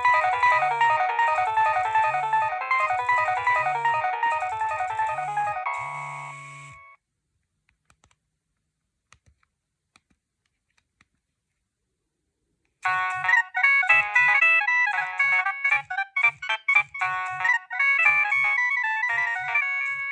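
Nokia 6610 mobile phone ringtones: a polyphonic melody over a bass line plays and fades out about six seconds in, followed by several seconds of near silence with a few faint clicks. About two-thirds of the way through, a different, fast staccato ringtone starts abruptly.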